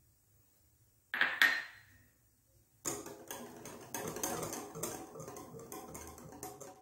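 Wire whisk beating thin cocoa cake batter in a glass bowl, clinking rapidly against the glass from about three seconds in. A short clatter comes about a second in, as grated orange zest is tipped in from a small glass dish.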